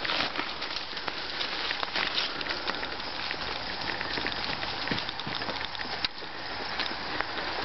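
Bicycle tyres and the dogs' feet crunching over dry leaf litter and twigs on a woodland trail: a continuous crackle dotted with many small snaps.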